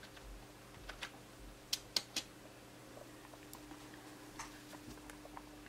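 Scattered clicks of computer keyboard keys, three sharper ones about two seconds in and lighter ticks after, over a faint steady hum.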